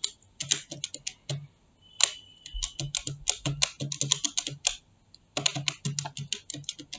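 Typing on a computer keyboard: three runs of rapid key clicks with short pauses between them.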